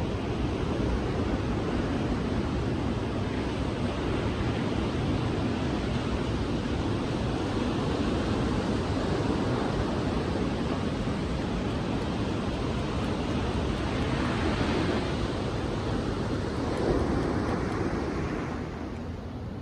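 Sea surf washing onto a beach: a steady rush of breaking waves that swells about two-thirds of the way through and again near the end, then eases off.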